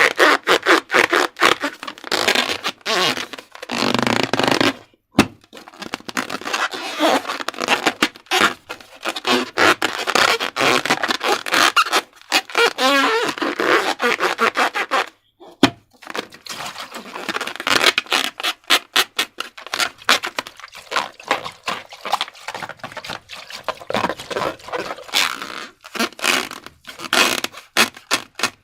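Slime being worked: a fast, irregular run of sticky, wet crackles and squelches, broken by brief pauses about four seconds in and again in the middle.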